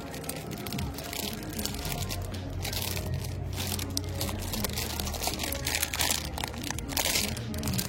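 Crinkling and rustling of plastic packaging handled close to the microphone, in irregular bursts over a low steady hum.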